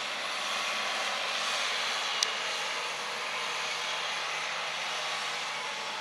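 Distant Case tractor's diesel engine running steadily while it pulls a tillage implement across the field. A single sharp click sounds about two seconds in.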